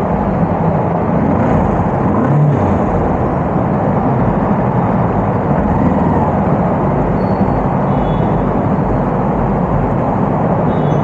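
Kawasaki KLE 250 single-cylinder motorcycle engine running steadily on the move, under a loud continuous wash of wind and road noise.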